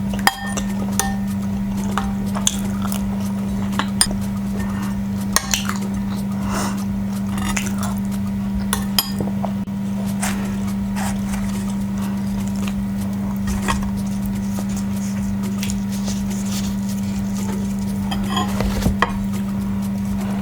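Utensils clinking and scraping on a plate now and then during a meal, a few sharp clicks spread through, over a steady low hum.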